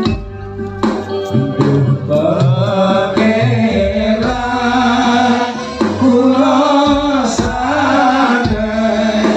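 Live Islamic devotional singing (sholawat) with an ensemble: a few percussion hits in the first second, then a long, wavering sung melody over steady instrumental backing.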